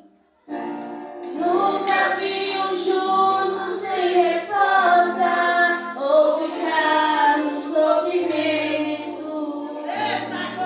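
Youth group singing a Christian worship song together, with music underneath. The singing starts after a brief silence about half a second in.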